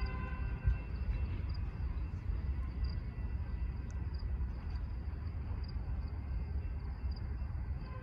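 Low rumble of a departing freight train fading into the distance, with a cricket chirping about once a second.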